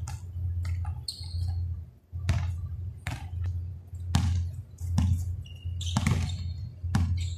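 Basketball dribbled on a hard court, bouncing about once a second, over a steady low hum.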